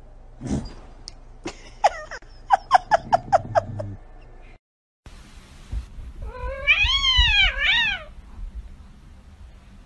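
Domestic cats calling: a quick run of short, falling calls, about five a second, then after a brief cut a long drawn-out meow that rises and falls twice.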